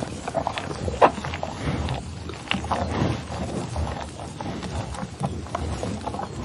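Bison moving about: scattered, irregular knocks and scuffs over a low rumble.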